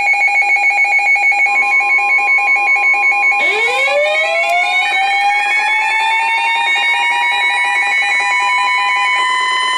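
Rapidly pulsing electronic alarm beeps. About three seconds in, a tornado warning siren joins them, winding up from a low pitch and levelling off into a steady high wail. The siren keeps sounding after the beeping stops near the end.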